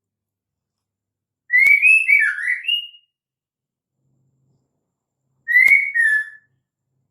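Female white-rumped shama calling: two short phrases of gliding whistled notes, the first about a second and a half long, the second shorter, each opening with a sharp click.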